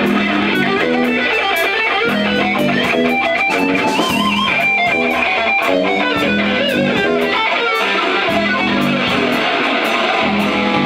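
Live electric guitar solo over a backing band: the lead line bends notes and shakes held high notes with wide vibrato, most plainly a few seconds in, over sustained bass notes and steady cymbal strokes.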